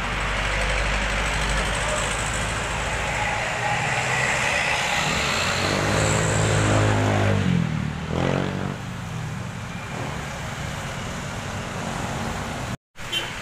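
Road traffic on a wet road: steady hiss of tyres on wet asphalt as trucks and cars pass close by. About halfway through, one heavy truck's engine swells up loudly and its pitch slides as it goes past. The sound drops out completely for a moment near the end.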